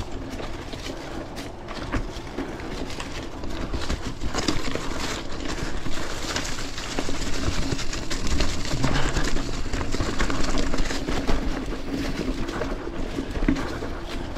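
Mountain bike riding down a leaf-covered rocky trail: the tyres crunch through leaves and rattle over rocks, with the chain and frame clattering and a faint steady hum underneath. It grows louder about four seconds in and is loudest mid-way.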